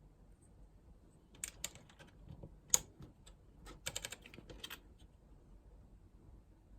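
Keys being pressed on a computer keyboard: an uneven run of clicks over about three seconds, one much louder than the rest near the middle.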